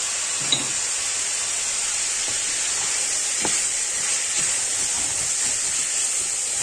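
Diced chicken breast, red onion and grated garlic sizzling in olive oil in a stainless steel pan, a steady high hiss. A wooden spoon stirring them makes a few light scrapes and knocks against the pan.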